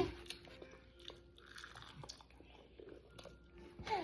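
Faint chewing and crunching of fried food, a few soft scattered crunches and clicks.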